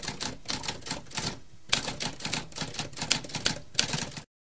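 Typewriter keys clacking in a rapid run, with a brief pause about a second and a half in, cutting off abruptly shortly before the end.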